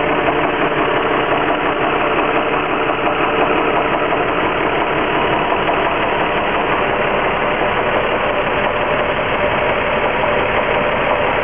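Infiniti G35x's 3.5-litre V6 idling steadily, with a knock/ping from the engine bay that the owner noticed right after an oil change.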